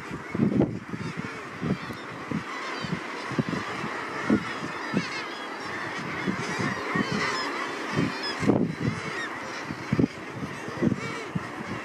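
Dense chorus of a nesting seabird colony: many birds calling at once, with harsh honking calls overlapping continuously.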